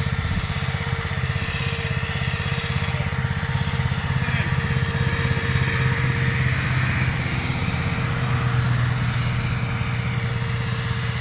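Walking tractor engine running steadily as it pulls a potato planter, a little louder in the middle.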